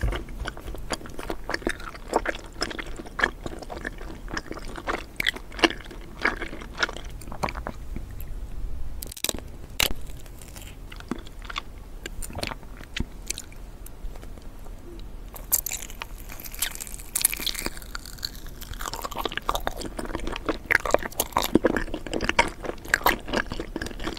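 Close-miked chewing and biting of a gummy candy ball, with sharp wet crackles and crunches throughout. A denser run of crackling comes about two-thirds of the way through.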